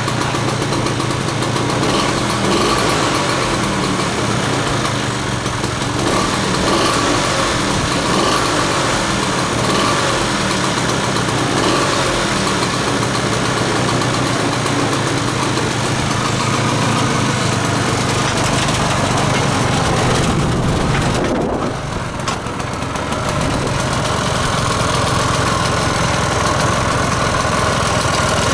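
Piaggio Ape 50's small two-stroke single-cylinder engine running steadily after being started. About 21 seconds in its sound briefly dips, then picks back up.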